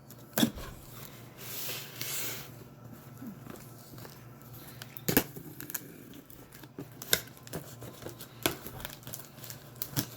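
A cardboard box and its packing being handled and opened by hand: crinkling and a tearing sound lasting about a second, with several sharp knocks and taps scattered through.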